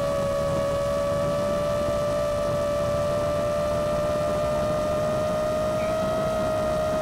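iFlight Chimera7 Pro 7-inch long-range quadcopter's motors and propellers whining steadily in cruise flight, the pitch creeping slightly upward.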